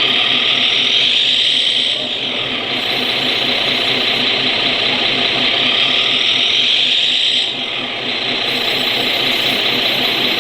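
Radio-controlled scale model truck running: a loud high whine that dips and comes back up in pitch twice, over a fast, regular low chugging.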